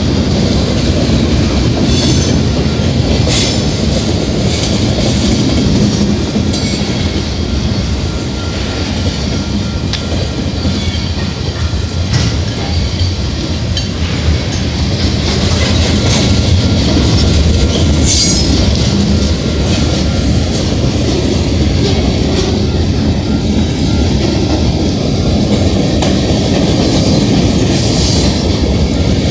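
Freight cars of a long manifest train rolling past at close range: steady wheel-on-rail noise with clacking over the rail joints, and several short high squeals from the wheels.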